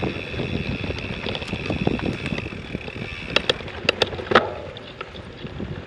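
Mountain bike rattling and jolting over a rough dirt trail. A handful of sharp clanks come a little past halfway, the loudest about four and a half seconds in, ringing briefly.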